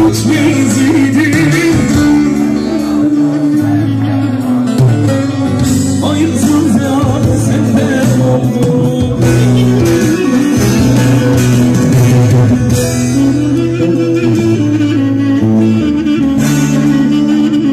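Live band playing an instrumental passage of a Turkish song through a concert sound system, plucked string instruments carrying the melody over held low bass notes.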